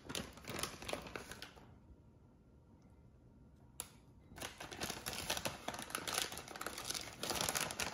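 Crinkly rustling and rapid light ticking of a plastic bag of shredded mozzarella being handled while cheese is sprinkled by hand, stopping for about two seconds partway through with a single click.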